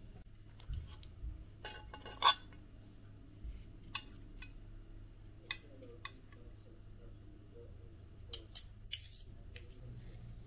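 A metal fork clinking and scraping against a ceramic plate while cutting into grilled chicken kebab, in scattered sharp clicks, the loudest about two seconds in and a quick cluster near the end.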